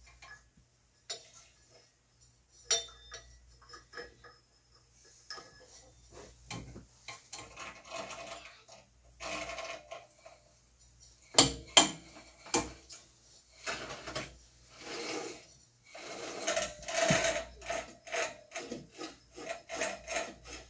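Hands fitting a new urethane drive belt onto the metal pulleys of a Busy Bee B324 bandsaw: irregular rubbing and scraping of the belt on the pulleys, with scattered clicks and knocks. The sharpest knocks come in a cluster about halfway through.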